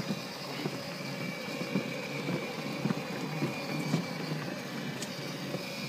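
Children's battery-powered ride-on toy car driving along: a steady small electric-motor whine with its plastic wheels rolling over paving slabs.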